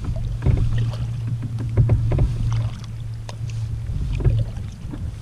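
Water splashing and slapping against a kayak's hull as it is paddled, in irregular small splashes over a steady low rumble.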